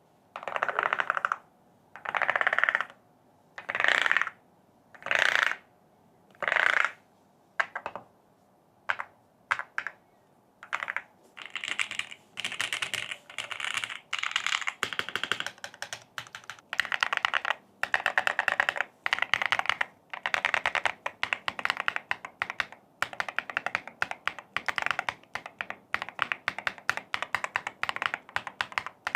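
ROG Night Demon EX mechanical keyboard with black enamel metal keycaps being typed on. First come separate runs of quick keystrokes about a second long, each a second or so apart. From about ten seconds in, it turns into fast, nearly continuous typing.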